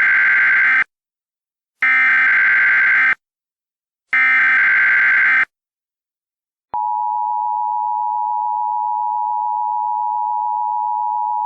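Emergency Alert System header: three identical bursts of SAME digital data tones, each a little over a second long and about a second apart. A second later comes the steady two-tone EAS attention signal, held for about five seconds.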